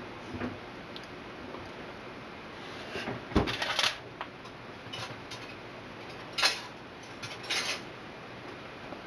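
Handling clatter of a foil-lined metal baking tray: a cluster of sharp clicks and crinkly scrapes about three seconds in, then a few shorter ones, over a steady faint hiss.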